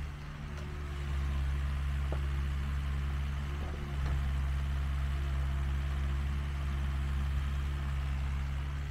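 Mini excavator's diesel engine running steadily, with a brief drop in level near the start and again about four seconds in, and a few faint knocks.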